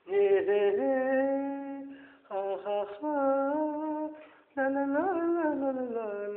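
Wordless singing in a high, female-register voice, humming a melody in four short phrases of held notes that slide between pitches.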